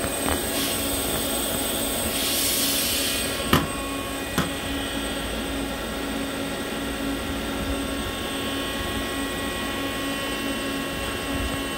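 Hardinge GT27SP CNC gang tool lathe running its cycle, a steady machine hum with several fixed whining tones, its spindle turning at around 500 RPM. A few seconds in there is a brief hiss, followed by two sharp clicks about a second apart.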